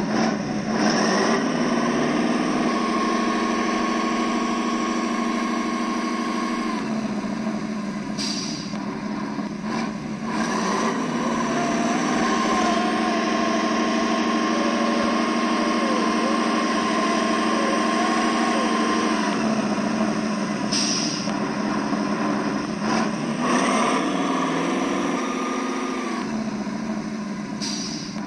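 Simulated truck engine sound from the RC model Ural 4320's sound module, played through its small onboard speakers, running steadily and rising and falling in pitch several times as the throttle is worked. A few short hisses come and go over it.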